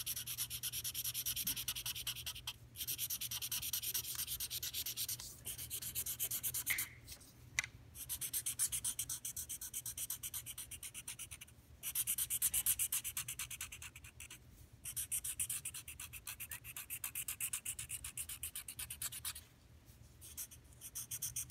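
Felt-tip marker scribbling on paper, colouring in with rapid back-and-forth strokes that stop briefly every few seconds.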